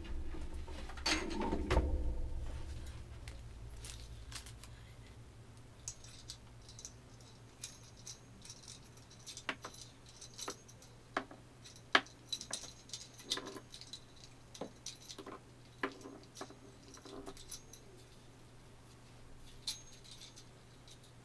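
Handling of a metal microphone boom arm: a couple of knocks in the first two seconds, then scattered light metal clicks and rattles.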